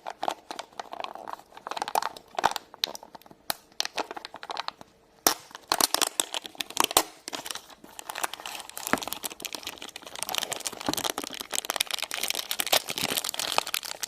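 Toy surprise packaging being unwrapped by hand: scattered clicks and handling at first, then from about five seconds in, dense crinkling and tearing of the wrapper.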